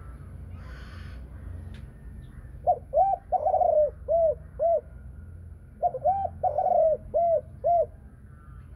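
Spotted dove cooing in the deep 'thổ sấm' voice style, two phrases a little over a second apart. Each phrase is two short coos, one long drawn-out coo, then two short closing notes.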